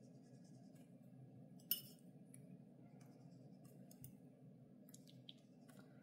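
Faint clinks and taps of a watercolour brush against painting gear over a steady low room hum. One sharp clink comes a little under two seconds in, and a few fainter ticks follow in the second half.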